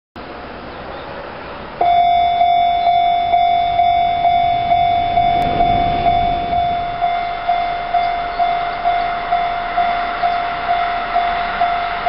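Japanese railway level-crossing warning bell starting up about two seconds in and ringing on at a steady pace of about two strikes a second, the signal that a train is approaching the crossing.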